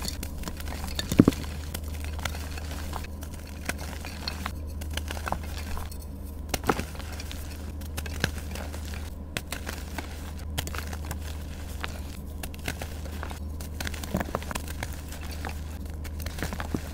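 Soft reformed gym chalk, dyed and shaped into blocks and donuts, being crushed and crumbled by hand: an irregular run of soft crunches and dry crackles as the pieces break into powder, with one sharper crack about a second in. A steady low hum runs underneath.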